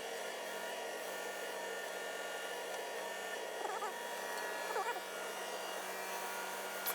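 Yanmar ViO55 mini excavator's diesel engine running steadily, with a couple of brief high chirps in the middle.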